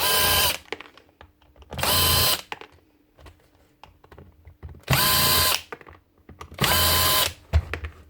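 Electric drill-driver run in four short bursts of about half a second each, a steady motor whine with each burst, backing screws out of the sander's base.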